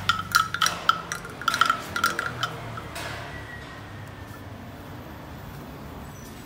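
Small metal object shaken by hand, clinking in quick irregular strikes that each ring at one clear pitch for the first two and a half seconds. A faint ringing note then dies away.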